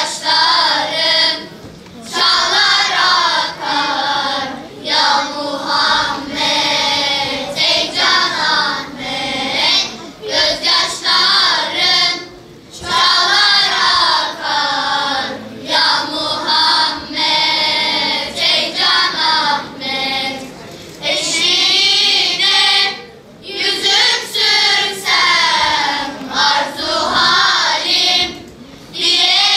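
Children's choir of girls and boys singing together, in sung phrases separated by short pauses for breath.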